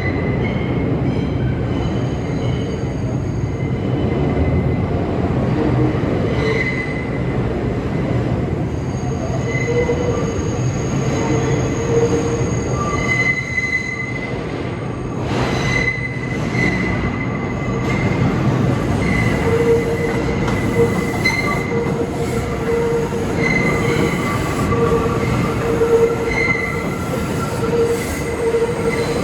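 R142 subway train running on the rails with a steady rumble, its wheels squealing in on-and-off high tones that grow more frequent in the second half, with one brief sharp clack about fifteen seconds in.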